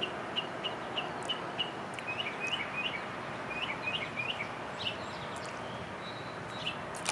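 A songbird chirping: a run of short, even chirps about three a second, then a few quick falling chirp groups, over a steady background rush of outdoor noise.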